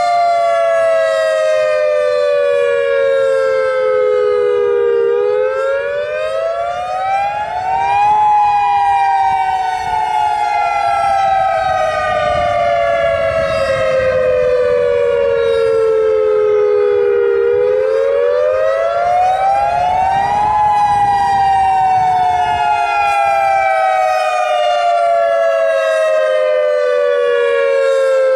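Federal Signal EOWS 612 electronic outdoor warning siren sounding its wail signal during a test. The pitch rises over about three seconds and then falls slowly over about nine, twice.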